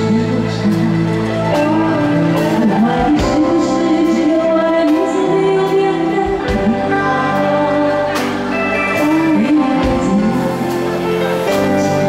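A woman singing a Mandarin pop song into a handheld microphone over amplified band accompaniment with drums.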